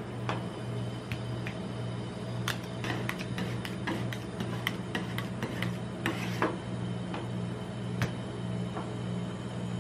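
Two metal spatulas chopping and mixing ice cream on a steel cold plate: irregular taps and scrapes of the blades against the pan, over a steady low hum.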